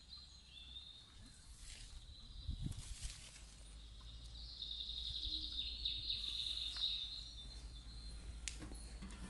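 Outdoor countryside ambience: a high, continuous chirring that grows louder in the middle, over a low rumble, with a few soft knocks from handling the branch.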